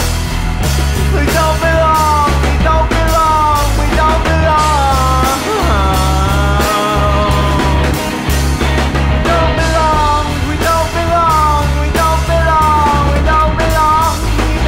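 Rock song instrumental section: an electric lead guitar plays sliding, bent notes over a bass line and drums.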